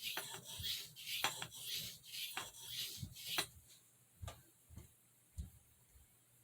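Boker Congress pen blade stroked on an oiled soft Arkansas sharpening stone, a rasping stroke about twice a second. The strokes stop a little past halfway, leaving a few soft low knocks.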